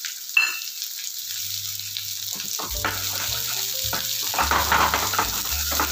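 Sliced onions sizzling in hot oil in a non-stick kadai. A sharp knock comes about half a second in, and a wooden spatula starts stirring and scraping the onions about two and a half seconds in.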